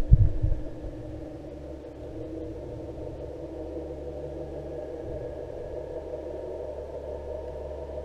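Underwater camera rig: a few heavy low knocks in the first second, then a steady low hum with a droning mid tone heard through the water.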